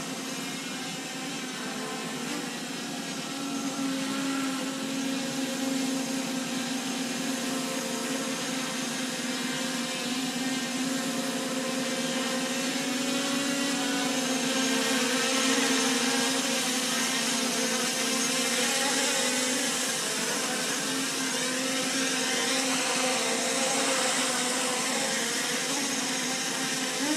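Holy Stone HS720E quadcopter hovering: its brushless motors and propellers whine steadily, the pitch wavering slightly up and down as the drone corrects its position in light wind. It gets a little louder about halfway through.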